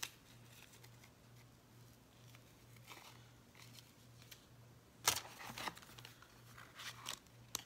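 Paper craft supplies and their packaging being handled: soft rustling and crinkling, mostly quiet, with a short cluster of louder crinkles about five seconds in and a few more near the end.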